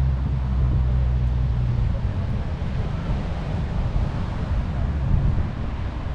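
Harley-Davidson Road Glide ST's 131-cubic-inch V-twin running steadily under way, with wind noise on the microphone.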